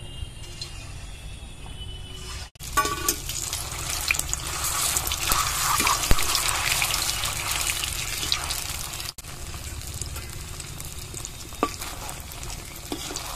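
Balls of puffed-rice and milk-powder sweet dough deep-frying in hot refined oil in a kadai: a steady crackling sizzle, louder through the middle, with two very brief dropouts.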